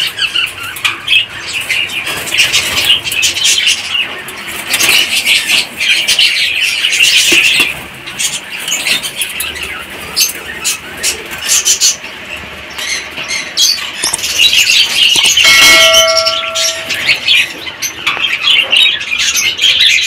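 Flock of cockatiels and other small parrots in a breeding aviary chattering and calling, many at once, with one held whistled note lasting about a second about three-quarters of the way through.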